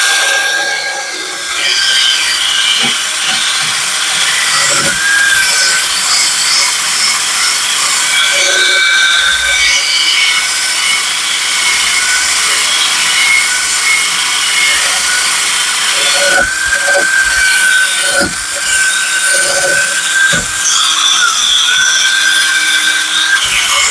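Handheld power tool scrubbing a clamped steel lawnmower blade clean: a steady high whine with harsh scraping, its pitch dipping and recovering as the tool is pressed on and eased off, with a few knocks as it is moved along the blade.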